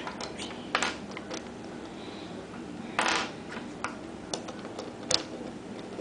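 Plastic pieces of a 4x4 Rubik's cube clicking and scraping as they are pressed into place on the cube's core: scattered sharp clicks, the loudest about three seconds in, with smaller ticks between.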